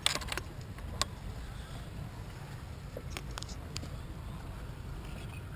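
Sharp metallic clicks and knocks from handling a sailboat winch's parts and tools: a quick cluster at the start, one about a second in, and several around three to four seconds in, over a steady low rumble of wind on the microphone.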